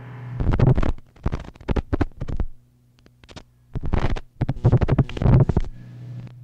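Experimental harsh noise music: irregular bursts of scratchy, crackling noise over a steady low hum, with a short near-silent gap about two and a half seconds in.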